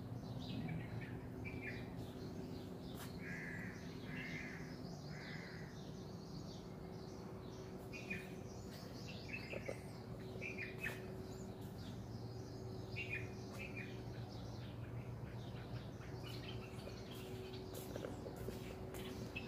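Birds calling: short chirps repeating every second or so, with three harsher calls in a row about three to five seconds in, over a steady low hum.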